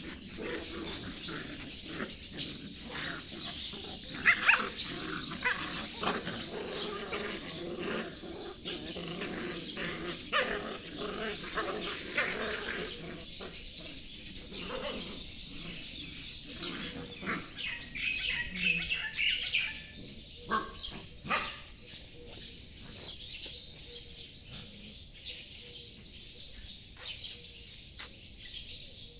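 Puppies play-fighting, with many short yips and small barks, and birds chirping in the background.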